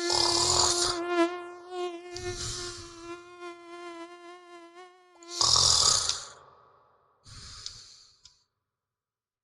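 A mosquito whining in a high, wavering buzz while a person snores, one snore every two to three seconds. The whine stops about five seconds in; the last snore is quieter.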